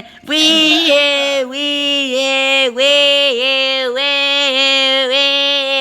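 A person's voice held loud on one note for about five seconds, with small regular dips in pitch, a mouth imitation of a toy car's engine.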